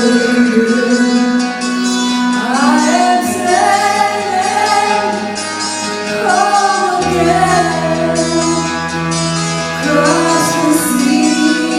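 Background music: a song with a female singing voice over instrumental backing and a sustained bass line, the voice coming in about two and a half seconds in.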